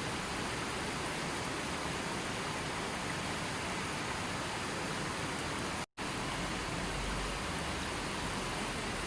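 Steady, even rushing noise of water, with a split-second dropout to silence about six seconds in, where the recording is spliced.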